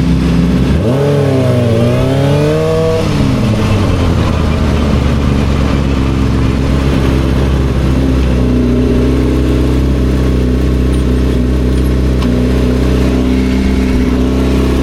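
2007 Yamaha R6's inline-four engine running steadily, with a brief rise and fall in engine pitch about a second in before settling back to an even note.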